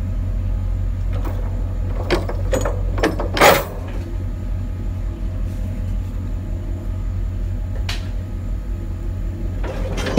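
A vehicle engine idling steadily with a low hum, with several sharp knocks and clatter between about two and three and a half seconds in, the last the loudest, and one more knock near eight seconds.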